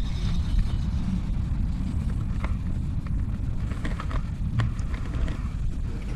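Wind buffeting the microphone as a steady, uneven low rumble, with a few faint clicks.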